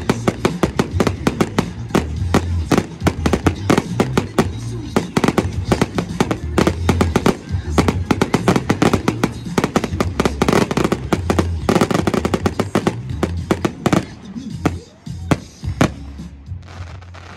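Professional fireworks display firing a rapid barrage of sharp bangs and crackles, several a second, over music with a heavy bass line. The bursts thin out and grow quieter in the last few seconds.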